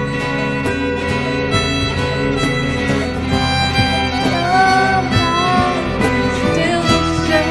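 Fiddle playing the melody over a band accompaniment in an instrumental break of a folk-style song, with sliding notes about halfway through.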